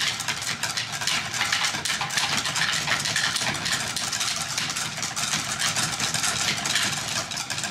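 A group of drumsticks tapping out strokes in ToneAlly stick-control trainers, many players at once and not in time with one another, making a dense, continuous clatter of rapid clicks.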